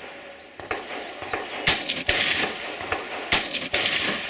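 Gunshots at a shooting match: two loud, sharp shots about a second and a half apart, with several fainter shots between and around them.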